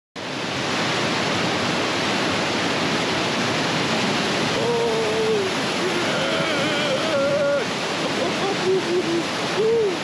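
Whitewater river running fast and loud over boulders in a steady rush. From about halfway through, a man's long, wavering exclamations of amazement cut in over the water.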